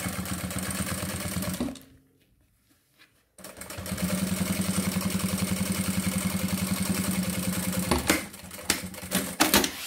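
Industrial sewing machine stitching synthetic leather beside a zipper, with a steady rapid stitch rhythm. It stops about two seconds in, starts again after a second and a half and runs for about four and a half seconds, then gives way to a few sharp clicks and knocks near the end.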